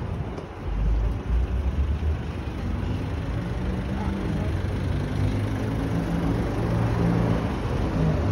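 A vehicle engine running with a low, steady hum, over outdoor background noise and a heavier low rumble about a second in.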